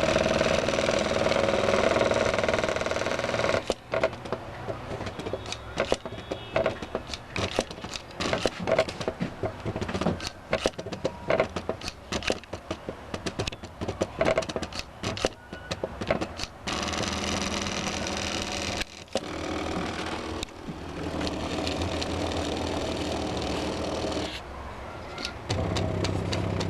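Stepper motors of a homemade CNC plotter driving its axes. A steady whine for the first few seconds gives way to stuttering, clicking stop-and-go moves, then steadier running again later on.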